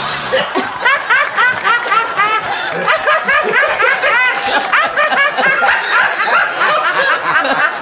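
A woman laughing hysterically: loud, high-pitched cackling, a rapid string of rising-and-falling 'ha' bursts at about four a second.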